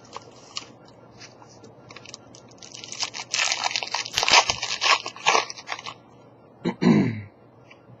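Foil trading-card pack wrapper being torn open and crinkled by hand, a burst of loud crackling lasting about three seconds from midway in, followed by a brief falling voice sound near the end.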